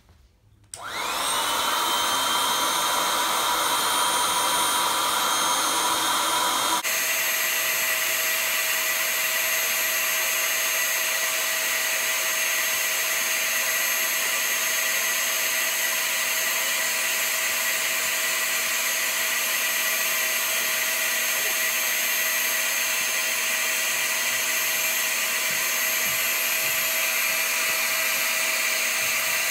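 Small corded electric air pump switched on about a second in, its motor whine rising quickly and settling into a loud steady drone as it inflates a large vinyl swan pool float.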